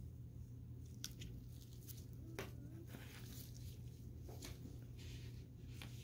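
Faint handling sounds of a CRKT Moxie folding knife in nitrile-gloved hands: about five scattered sharp clicks with soft rubbing between them, over a steady low hum.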